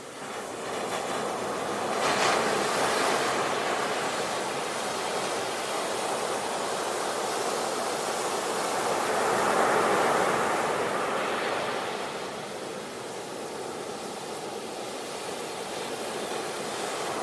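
Sea waves breaking and washing in, a steady rush of surf that swells about two seconds in and again around ten seconds, easing between.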